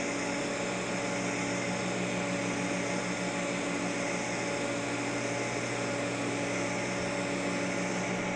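Steady hum and hiss of a TIG arc from a Miller Dynasty 400 welding thin-wall stainless steel tubing as it turns on a motorized pipe positioner. A short click comes right at the end.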